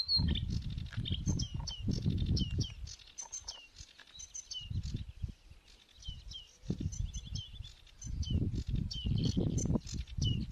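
Sedge warbler singing: a long run of short chirps and quick falling notes, many of them repeated. A low rumble comes and goes beneath the song.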